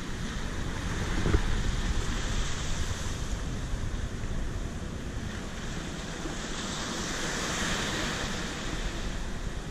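Ocean surf washing onto a sandy beach, with wind buffeting the microphone; a wave hisses in more loudly near the end. A single sharp knock sounds about a second in.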